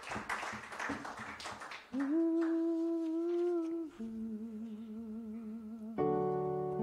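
Live worship band music: a rhythmic accompaniment for the first two seconds, then two long held notes, the second lower and wavering with vibrato. About six seconds in, a keyboard chord starts the next song.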